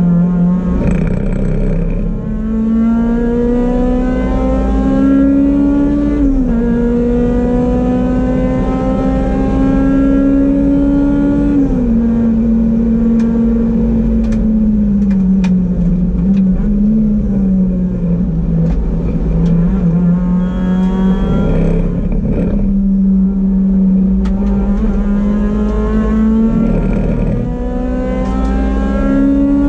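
Honda Civic Type R EP3's tuned K20A2 four-cylinder engine with a full 63 mm exhaust, heard from inside the cabin at full throttle on track. It climbs hard in pitch and drops sharply at upshifts about six and twelve seconds in, falls for a stretch in the middle as the car slows, then climbs again through the gears toward the end.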